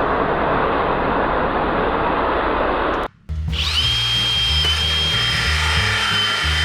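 A dense rushing noise that cuts off abruptly about three seconds in. After a short gap, a small power tool runs with a steady high whine, over background music with a stepping bass line.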